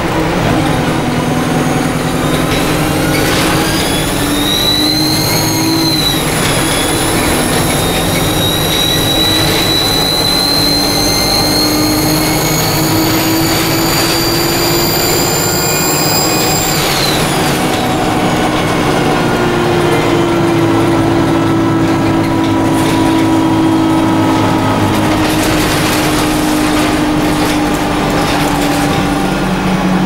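Alexander Dennis Enviro200 bus heard from inside the saloon, pulling away with a loud, high turbo whine. The whine rises, dips about six seconds in, then climbs steadily and cuts off suddenly around seventeen seconds in. After that the engine runs on with a lower whine over road noise.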